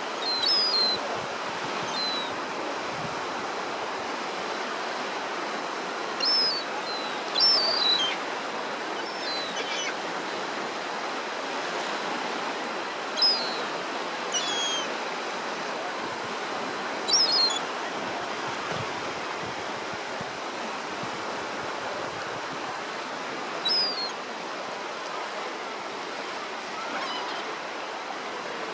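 Sea of Azov surf washing steadily on the beach, with gulls giving short, high cries about ten times, the loudest about 7 and 17 seconds in.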